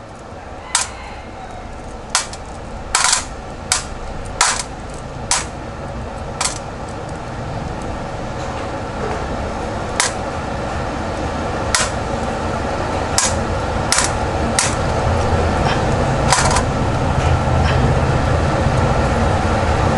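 Screws and small parts from a dismantled cordless screwdriver being set down into plastic trays: a dozen or so sharp, separate clicks and clinks at uneven intervals, over a steady low hum that slowly grows louder.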